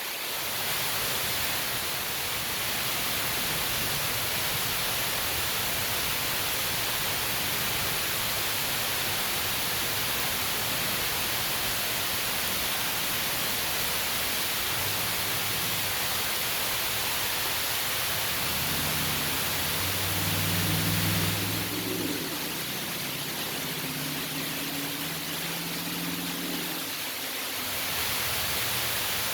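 Steady hiss of heavy rain falling around the lake. A low hum comes in past the middle and fades out near the end.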